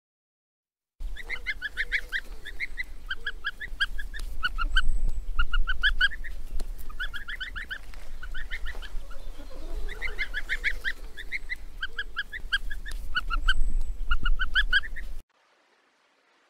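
Small yellow-green songbird at its nest calling in quick phrases of three to six short notes, one phrase about every second with short gaps between. The calls start about a second in and cut off sharply near the end.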